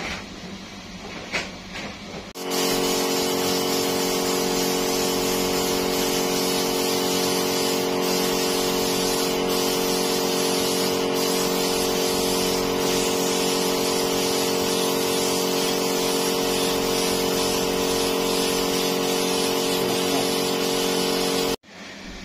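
Gravity-feed spray gun spraying paint: a steady hiss of air with a steady hum under it, starting about two seconds in and cutting off abruptly near the end.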